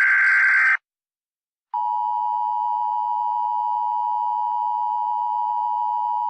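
Emergency Alert System broadcast tones. A screeching digital header burst cuts off just under a second in. After about a second of silence, the steady two-tone attention signal starts and holds unchanged.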